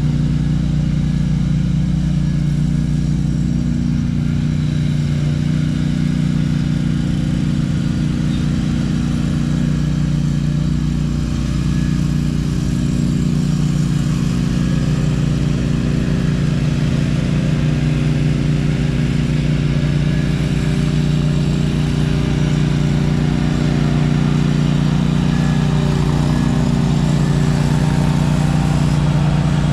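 An engine running steadily at a constant speed, with an even, unchanging note.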